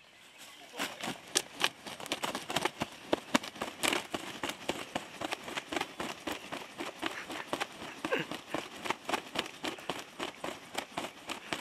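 Wings of a shot wild turkey gobbler, held up by the legs, flapping and beating in reflexive death throes: a dense, irregular run of feather rustles and slaps starting about a second in.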